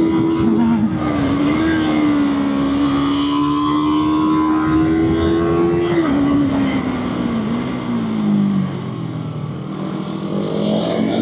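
Sport motorcycle engine held at steady high revs, its pitch falling away after about six seconds as the throttle is closed, then climbing again near the end as it is revved back up.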